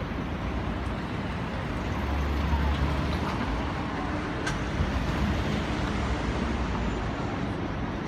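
A row of large outdoor condenser fans, for air conditioning or refrigeration, running with a steady rushing noise. A deeper low rumble swells for about a second and a half, around two seconds in.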